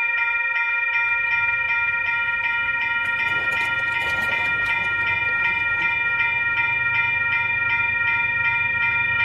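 Railroad grade-crossing bell ringing rapidly and steadily, about two or three strokes a second, cutting in suddenly. A short burst of rattling noise comes about three seconds in.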